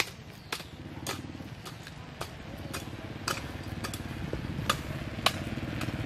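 A small engine running steadily, slightly louder toward the end, with sharp clicks or knocks scattered over it.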